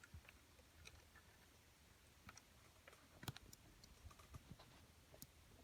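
Faint, scattered clicks and taps of a steel lever padlock and metal tools being handled, with one sharper click a little past halfway.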